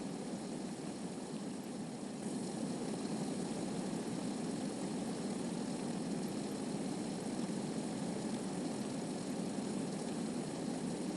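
Steady rushing water: an even, low-pitched wash of noise, a little louder from about two seconds in.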